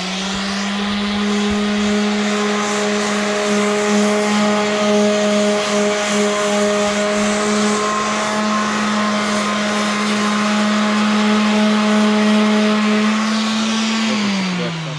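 Corded electric orbital sander running steadily with its pad pressed against body filler on a car's front fender, a steady motor whine over the rasp of sanding. It spins down near the end.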